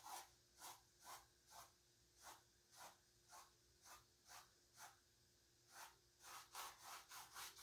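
Faint brush strokes of a paintbrush working acrylic paint on a stretched canvas, about two short strokes a second, with a brief pause a little past the middle.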